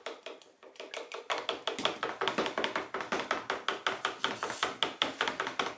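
A spatula stirring mica-coloured soap batter briskly in a pouring jug, clicking against the jug's sides several times a second. The clicking is faint at first and turns loud and steady after about a second.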